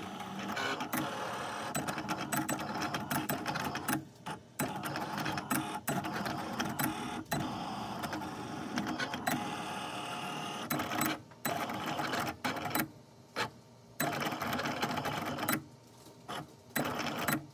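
Cricut electronic cutting machine at work: its stepper motors whir as the blade carriage and rollers move the sheet in quick runs, with a few short pauses, while it cuts out a paint-stencil sheet.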